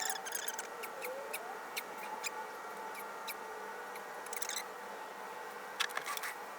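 Rubber fuel pump sleeve being pushed and worked over the body of a fuel pump, lubricated with WD-40, giving irregular small squeaks and clicks.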